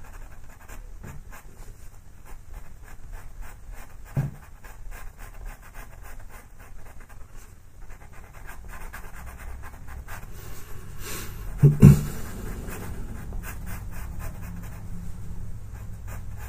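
Pastel pencil scratching across textured pastel paper in quick short shading strokes. A brief low sound comes about four seconds in, and a louder double one near twelve seconds.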